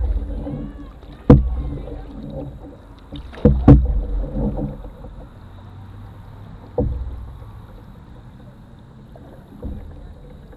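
Canoe paddling: sharp knocks of the paddle against the canoe hull, each with a short low rumble through the boat, every one to three seconds, two close together near the middle and the last ones fainter.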